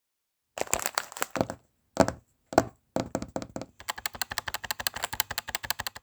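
Foley sound effects: a run of crackling clicks, two sharp single cracks about half a second apart, then a fast, even ticking of about seven clicks a second that stops near the end.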